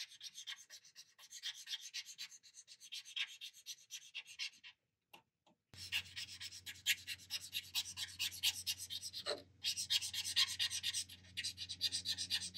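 Chisel felt tip of an adhesion-promoter applicator pen scrubbing back and forth on a plastic tailgate sidewall, a fast run of short scratchy strokes. The strokes stop for about a second near the middle, then carry on.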